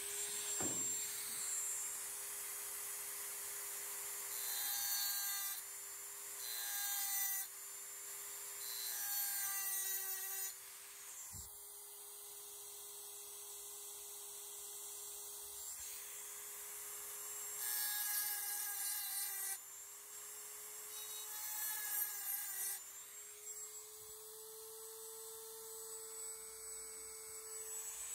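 Dremel rotary tool with a carbide cutting bit running at a steady high whine while it grinds a sharpening choil into a steel knife blade. It cuts in short passes: several spells of harsh grinding lasting a second or two, with the motor's pitch dipping slightly under load.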